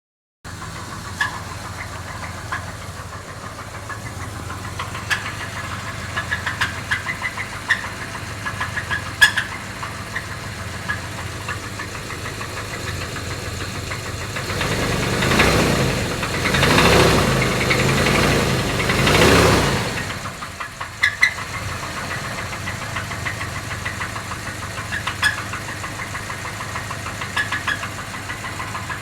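Jeep Grand Cherokee engine idling with a knock, a rapping tick over the running engine. About halfway through, it is revved three times and falls back to idle.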